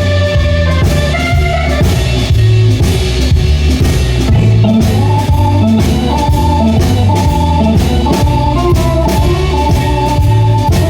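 Instrumental break in a blues-rock song: a band with drum kit and bass keeps a steady beat while a lead instrument plays a melody, with no singing.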